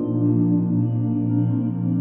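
Soft ambient background music with sustained, slowly shifting tones.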